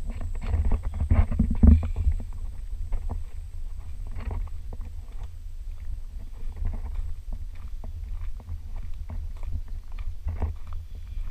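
Footsteps crunching irregularly on a stony dirt path, over a steady low rumble on the microphone from the moving camera.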